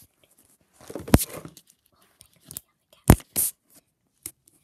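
Close handling noise: soft rustling and crinkling, with two sharp knocks about two seconds apart.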